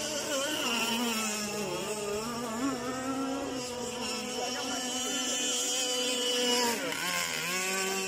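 Radio-controlled powerboat running at speed across the water, a steady motor note that wavers slightly; about seven seconds in the pitch drops sharply as the boat eases off for a turn, then climbs again as it powers out.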